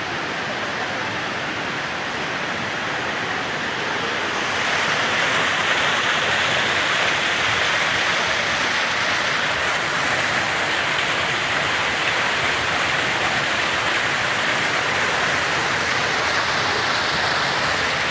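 Steady rush of falling water, getting louder about four seconds in.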